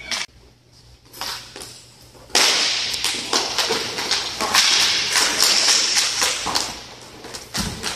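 Roller hockey play resuming: skate wheels rolling and scraping on plastic court tiles with sharp clacks of sticks and puck, starting about two seconds in. A low thud comes near the end.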